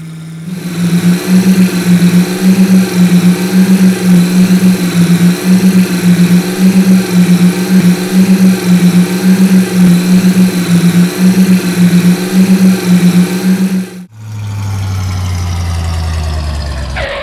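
Monster truck engine sound effect: a loud, throbbing engine note that wobbles evenly between two pitches. It cuts off suddenly about fourteen seconds in, and a lower engine note follows that steps down in pitch.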